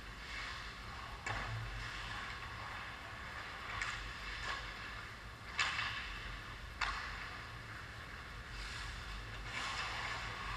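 Distant ice hockey play heard in the rink: a steady hiss with about five sharp clacks of sticks, puck or boards, the loudest a little past halfway.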